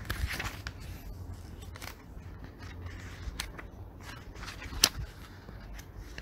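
A steady low background rumble with scattered sharp clicks, one loud click about five seconds in.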